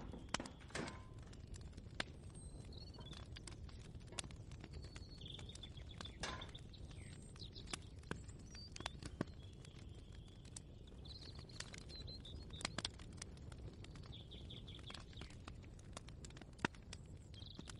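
Kitchen ambience: a steady low rumble with scattered light clicks and taps, and faint short bird chirps.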